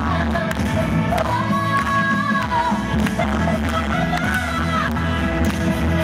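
A woman singing live into a microphone over amplified backing music with a steady beat, holding long notes that bend at their ends.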